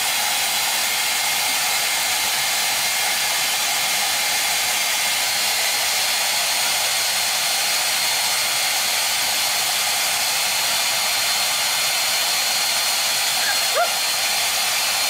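A steady, loud rushing noise with a thin high whine in it, like a motor-driven blower. A few short, faint rising cries break through near the end.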